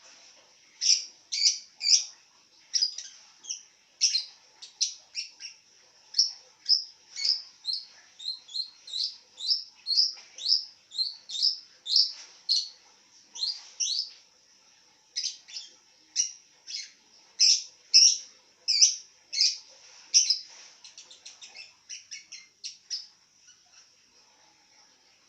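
Lovebird chirping: a long run of sharp, high chirps, one to three a second. There is a brief pause just past halfway, and a quicker, softer string of chirps near the end.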